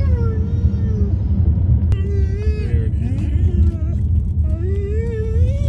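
Excited dog whining and whimpering, a string of high wavering whines that rise and fall, over the steady low rumble of the moving car it is riding in.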